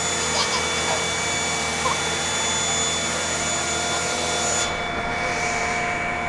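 A steady machine whirr with several constant tones running under it. The top of the hiss goes dull about three-quarters of the way through while the loudness holds.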